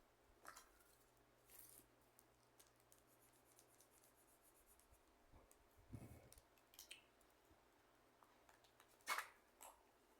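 Faint scattered clicks, taps and light scratching of small objects being handled, with a soft thump about six seconds in and the sharpest click about nine seconds in.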